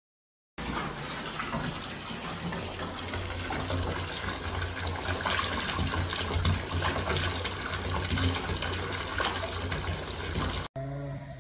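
Bath mixer tap running, with a stream of water pouring into a partly filled bathtub. The pouring sound is steady and cuts off suddenly near the end.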